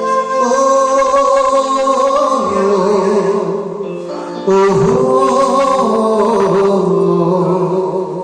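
Live band playing an instrumental passage of a Nepali song, with held melodic lines. The music gets suddenly louder about four and a half seconds in.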